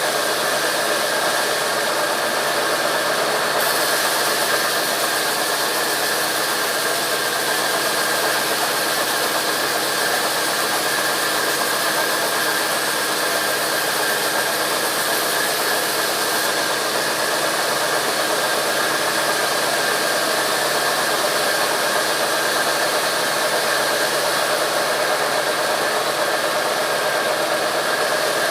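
Sawmill machinery running steadily: an even mechanical noise with a constant whine over it.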